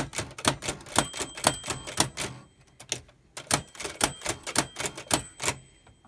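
Keys of a 1913 Hammond Multiplex typewriter struck at random, about three to four sharp clacks a second, with its hammer driving the paper against the type shuttle. The typing pauses for about a second midway, and a faint steady high ring sits behind some of the strokes.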